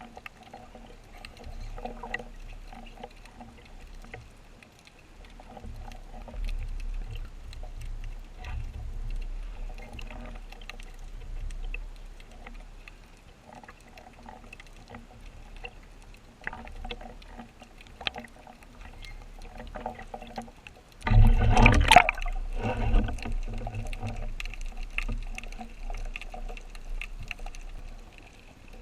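Water swirling and sloshing around an action camera in spearfishing gear, with scattered clicks and low rumbling. About two-thirds of the way through comes a loud, brief rush of noise.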